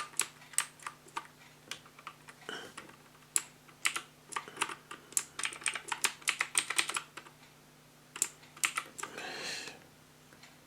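Keys being pressed on a SADES K10 mechanical keyboard with clicky blue switches: a run of quick, irregular clicks that thins out after about seven seconds, with a few more presses near the end.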